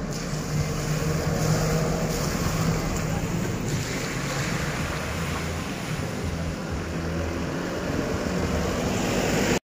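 Road traffic: car engines running and tyres passing through a junction, over a steady rushing noise from wind on the microphone. Cuts off abruptly near the end.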